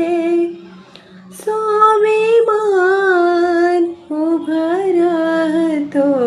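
A woman singing a Marathi song solo, drawing out long held notes with a wavering pitch. She breaks off briefly about a second in, then sings two more long phrases.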